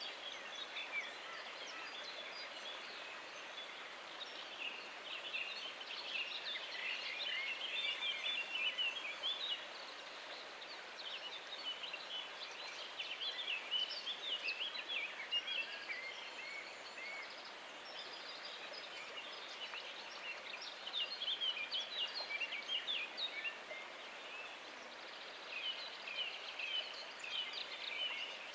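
Dense chorus of songbirds singing, with many quick overlapping chirps and trills, over a steady background hiss.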